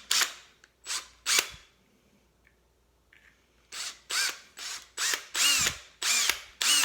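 Small electric drill run in short trigger bursts, each spinning up and winding down, as it drills out the pot-metal rivets of a Hot Wheels die-cast car's base. Three bursts come first, then a pause of about two seconds, then a steady run of bursts about two a second.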